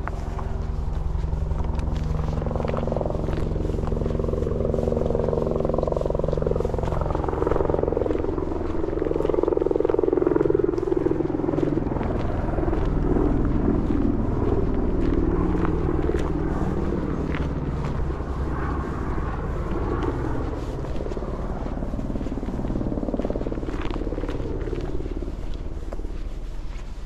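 A motor passing at a distance: a steady low engine drone that swells to its loudest about ten seconds in and then slowly fades.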